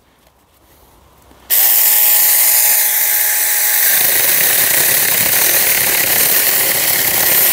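Saker battery-powered mini electric chainsaw starting about a second and a half in and sawing through a branch of a log. Its steady motor whine fades about four seconds in while the loud sawing noise carries on.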